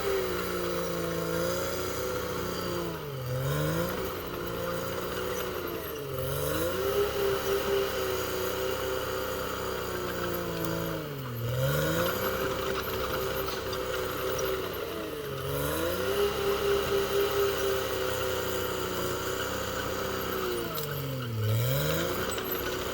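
Caterpillar D6R XL bulldozer's diesel engine running hard, its note dipping sharply and recovering four times as the engine pulls down under load.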